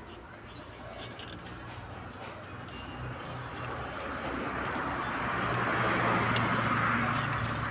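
A rushing noise with a low hum beneath it, swelling gradually from about three seconds in to its loudest near the end and then easing off, like a motor vehicle going past.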